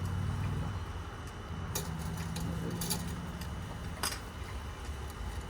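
A few light metallic clicks and clinks of hand tools and parts being handled, the sharpest about four seconds in, over a low steady hum.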